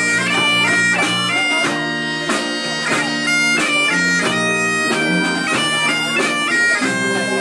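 Bagpipe music: a high, piercing melody stepping between held notes with quick grace-note flourishes between them, over lower sustained notes that change several times.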